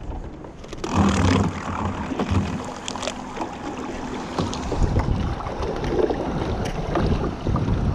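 Small boat pushing through thin lake ice on its electric trolling motor: ice knocking and scraping against the hull in a run of short knocks, with a steady motor tone for a few seconds. Wind buffets the microphone in the second half.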